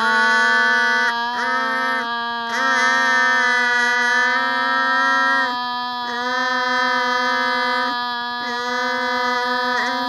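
A voice chanting one long held note on a steady pitch, like a prayer chant. The vowel shifts briefly about a second in and a few more times.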